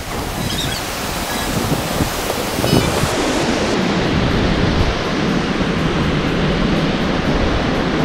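Fast mountain river (the Alaknanda) rushing over rocks below a footbridge: a steady, dense roar of water that grows a little louder about three seconds in.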